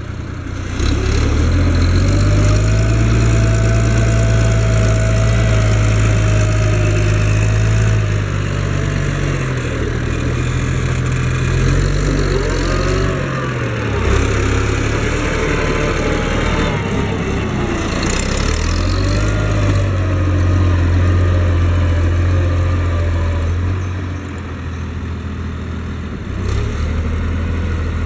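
Case IH 1056 XL tractor's six-cylinder diesel engine working under load as it pulls a four-furrow plough through the soil. Its steady note dips and recovers a few times.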